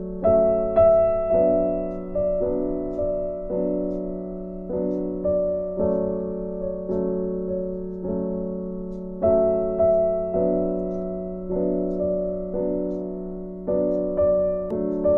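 Background piano music: a slow, even pattern of notes, each struck and left to fade, over a steady low tone.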